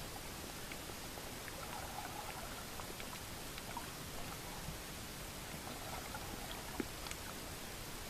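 Underwater sound on a coral reef, picked up by a camera in the water: a steady hiss scattered with faint clicks and crackles, and one sharper click about seven seconds in.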